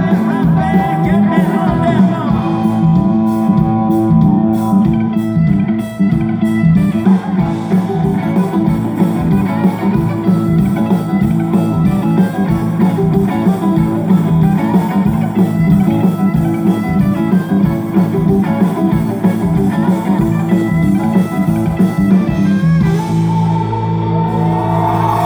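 A live band playing amplified music: electric guitar over electric bass and a drum kit keeping a steady beat.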